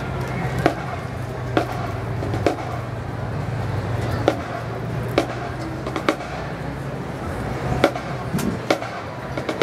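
Sharp clicks at a slow, fairly even pulse, about one a second, over a steady low hum that fades out about seven seconds in.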